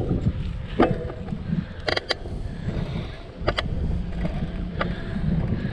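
Wind rumbling on the microphone and tyre noise from a bicycle riding along a paved path, with a few sharp knocks from the bike, about four in all.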